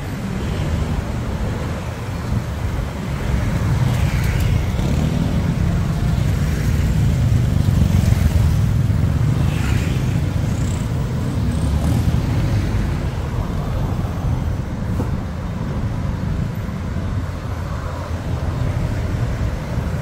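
Busy city road traffic passing close by: a steady low rumble of vehicle engines and tyres that swells louder in the middle.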